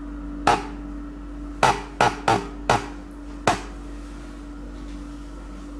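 Six sharp knocks on something hard: one, then four in quick succession, then one more, over a steady low hum.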